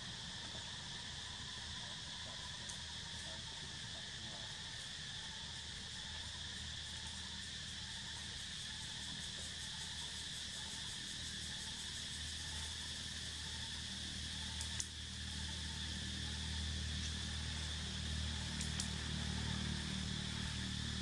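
Steady, high-pitched drone of a chorus of insects such as crickets, running without a break. A low rumble grows louder in the second half, and there is a single sharp click about fifteen seconds in.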